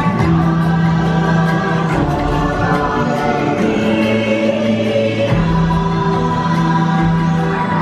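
Choral music with long held notes in shifting chords, the ride's Na'vi-style choir soundtrack.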